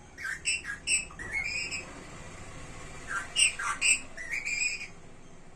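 Pet parrot giving short, high chirps and squawks in two bursts of about a second and a half each, a second or so apart.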